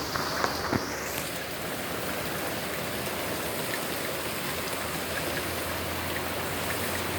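Heavy rain pouring down: a steady, even hiss of rain on the ground and running runoff water, with a few light knocks in the first second.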